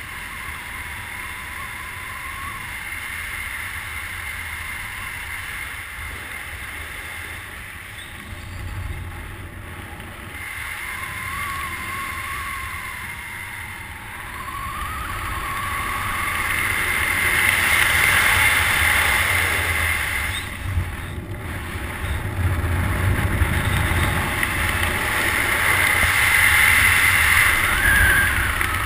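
Wind rushing and buffeting over the camera's microphone during a tandem skydive descent. It swells louder about halfway through and again near the end, with a faint whistle now and then.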